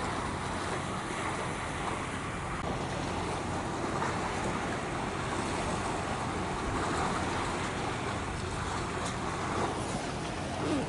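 Steady outdoor wash of wind and waves with a low rumble underneath.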